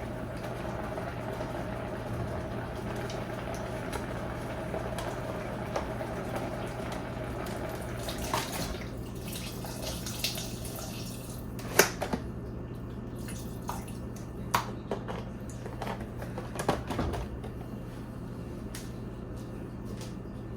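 A steady rushing, water-like noise that stops about eight seconds in, followed by a few scattered sharp clicks and knocks of kitchen items being handled, over a low steady hum.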